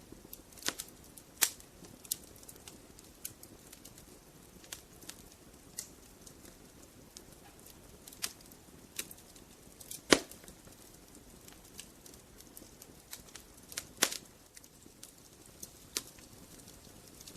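Logs burning in a fireplace: irregular sharp crackles and pops over a soft hiss, with louder pops about a second and a half in, around ten seconds in and around fourteen seconds in.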